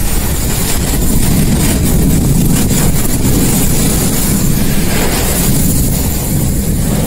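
Severe thunderstorm wind and heavy rain lashing a car, heard from inside the cabin as a loud, steady low rumble with a hiss of rain over it.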